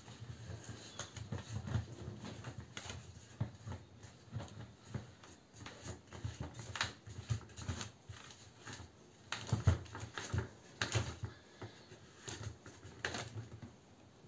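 Plastic hand-pump garden pressure sprayer being pumped up to pressure, a string of uneven pumping strokes with knocks and rubbing of the plunger.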